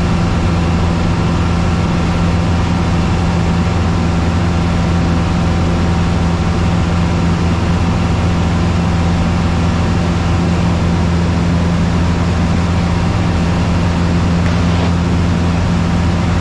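Single-engine Cessna's piston engine and propeller droning steadily in flight, heard inside the cabin, with a deep, even hum and no change in pitch.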